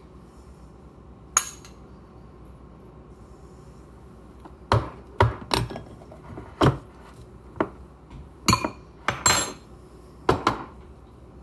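Metal spoon and glass food-storage container knocking and clinking against a ceramic bowl and each other while food is served: one sharp knock early, then a run of about ten sharp clinks with short ringing in the second half.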